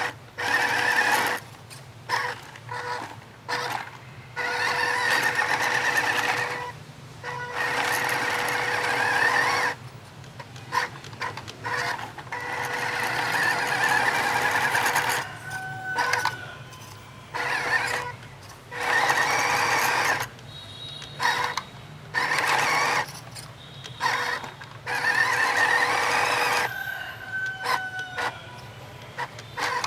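RC 4x4 car's motor and gears running in repeated bursts, starting and stopping every second or two as the throttle is worked.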